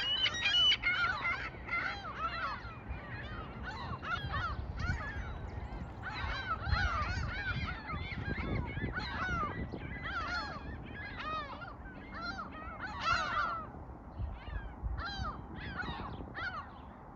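A flock of waterbirds calling continuously: many short overlapping calls, several a second, over a low rumble.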